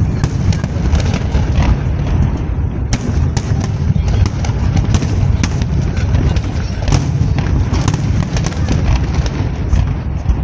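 Fireworks display: a continuous deep rumble of bursting shells with many sharp bangs and crackles over it, several a second.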